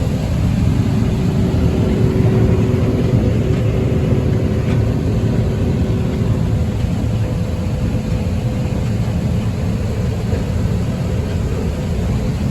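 Diesel farm machinery engine running steadily, a low rumble with wind buffeting the microphone.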